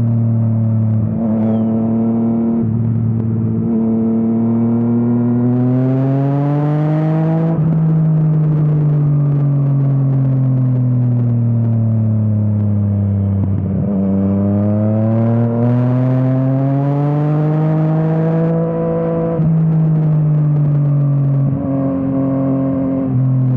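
Yamaha MT-09 inline three-cylinder engine through an Akrapovič exhaust under way: the revs climb and fall away twice, with short breaks at the gear changes. Wind rushes past as the engine nears the top of each climb.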